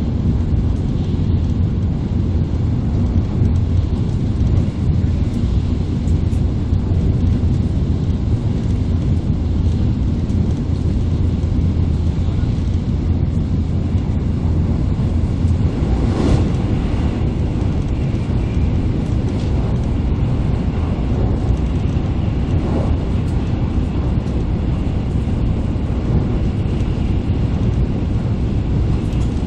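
Steady low rumble and rush of an N700A Shinkansen running at speed, heard from inside the passenger cabin, with a brief louder whoosh about halfway through.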